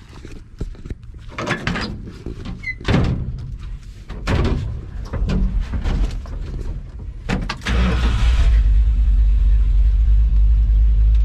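A string of knocks and clunks, then from about eight seconds in the 1970 Dodge D100's 383 big-block V8 runs loudly and steadily with a deep low rumble.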